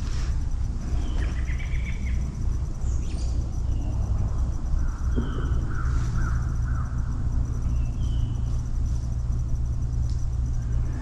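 Woodland ambience: a steady low rumble with short bird chirps every second or two, and a longer warbling bird call a few seconds in.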